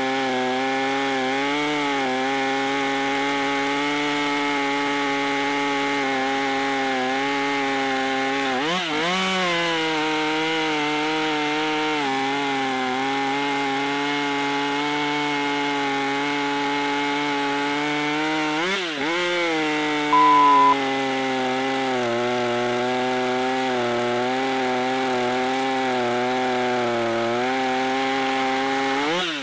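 Husqvarna top-handle arborist chainsaw, a two-stroke gas saw, running at full throttle and cutting through dense lodgepole pine. The engine note is steady, with its pitch dipping and climbing back twice, about a third and two-thirds of the way through. A short steady beep sounds just after the second dip, and the saw's sound drops away at the very end.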